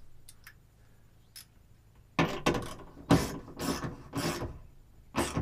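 A nut being tightened with a hand tool onto a battery cable lug at a bus bar. A few light clicks come first, then, about two seconds in, a run of about seven short rasping strokes as it is turned down tight.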